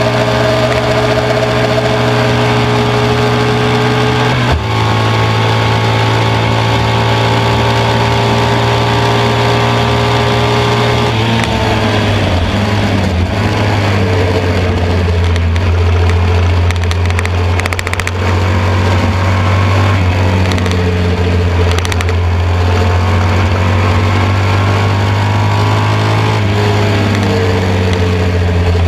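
1972 BMW R75/5's air-cooled flat-twin engine running hard at racing speed, heard from on board. Its note breaks briefly about four and a half seconds in, drops around eleven seconds in, and climbs again near the end as the revs change with gear and speed.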